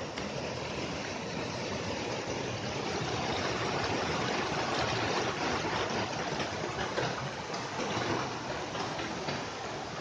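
Mountain stream rushing and splashing over rocky cascades, a steady rush of water that grows louder over the first few seconds.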